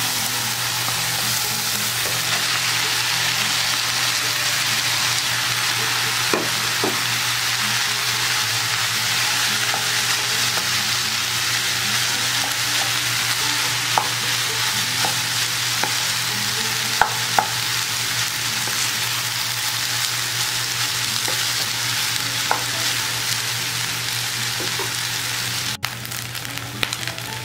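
Rice and mixed vegetables frying in a nonstick wok: a steady sizzle, stirred with a wooden spatula, with a few light knocks from the spatula scattered through it.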